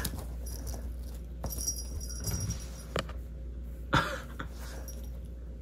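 A kitten wrestling and biting a toy: faint rustling and a few soft knocks about a second and a half, three and four seconds in, with a light metallic jingle in between.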